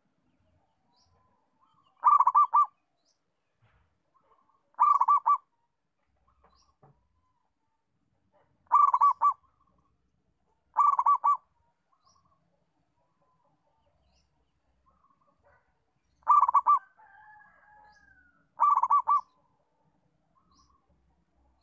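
Zebra dove (perkutut) cooing: six short phrases, each a quick run of stuttering notes, spaced a few seconds apart. Faint high chirps come and go between them.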